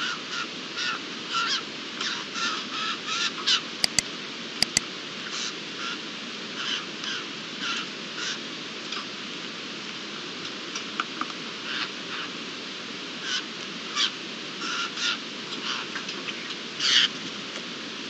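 Eurasian jays, a family with juveniles, giving short harsh calls again and again over a steady low background noise. Two pairs of sharp clicks come about four seconds in.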